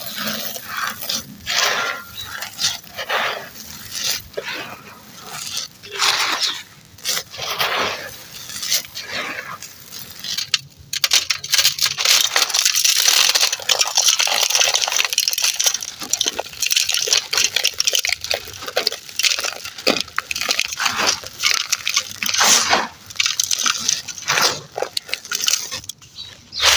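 Dry, gritty clumps of earth or cement being crumbled, giving a run of crunching, crackling bursts that thicken into a near-continuous crunch for a few seconds in the middle.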